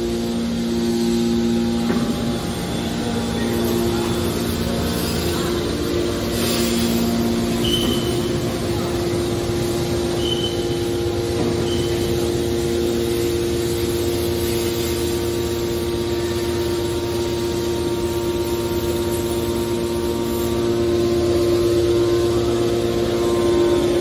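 Hydraulic power unit of a scrap metal baler running, its electric motors and pumps giving a steady hum with a held whine. A few short high squeaks come in around the middle.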